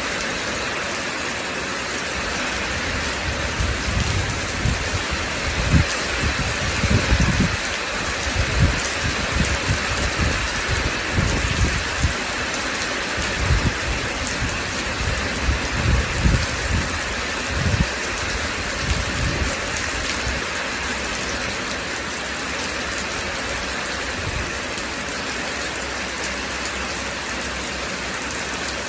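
Steady rain hissing, with low rolls of thunder rumbling on and off through the middle that die away in the last several seconds, leaving only the rain.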